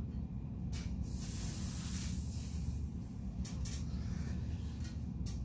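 A man's hard hissing breaths as he strains through heavy cable wrist-curl reps: several short hisses and one longer one, over a steady low hum.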